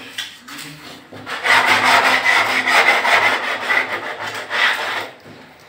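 Rapid rubbing strokes on a laminate-covered wooden door panel. They start about a second in and ease off near the end.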